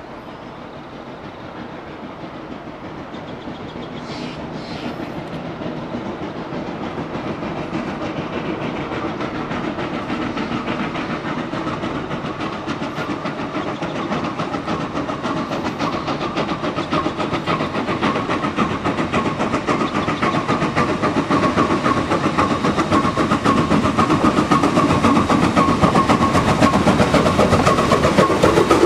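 A steam train hauled by two steam locomotives working together approaches and grows steadily louder, its exhaust and running gear making a dense, fast rhythm over the clatter of the wheels.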